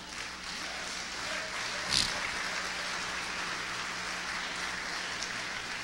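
Congregation applauding steadily, with a single knock about two seconds in.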